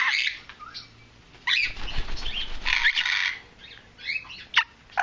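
Ten-week-old African grey parrot chattering: a string of short squeaky chirps and quick rising and falling whistles, with raspy hissing calls in between.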